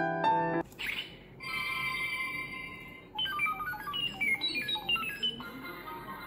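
Piano music stops about half a second in, followed by high electronic tones: a brief sweep, held beeping tones, then a quick run of short beeps stepping up in pitch.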